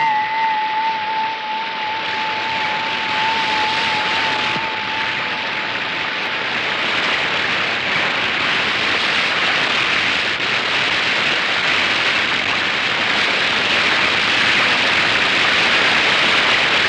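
Rain pouring down steadily as a loud, even hiss. A single held, wavering note of background music carries over at the start and fades out about five seconds in.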